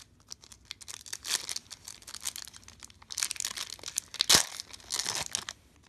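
Yu-Gi-Oh! booster pack's foil wrapper crinkling and being torn open by hand: a run of crackling rustles in clusters, with the loudest sharp rip about four seconds in.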